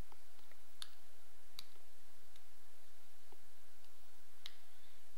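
A handful of faint, scattered clicks of a computer mouse.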